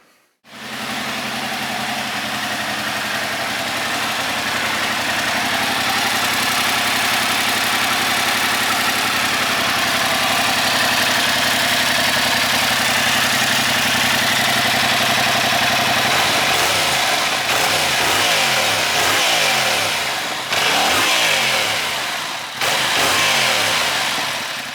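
Yamaha R7's 689 cc parallel-twin engine idling steadily. From about two-thirds of the way through, its note begins to rise and fall with light blips of the throttle.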